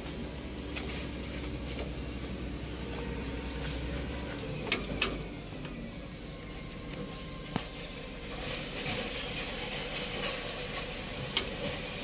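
A steady low mechanical hum that drops away about four seconds in, over a noisy background. A few sharp metallic clicks come through: two close together around five seconds in, one near eight seconds and one near the end.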